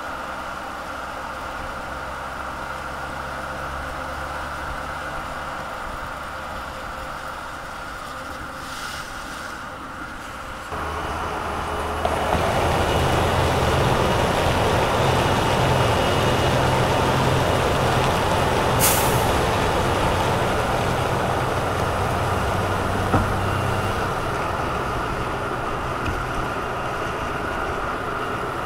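Mercedes-Benz GenH2 hydrogen fuel-cell electric truck driving, mostly tyre and road noise with a low steady hum and no diesel engine note. It grows louder about a third of the way in, and a brief sharp hiss comes about two-thirds through.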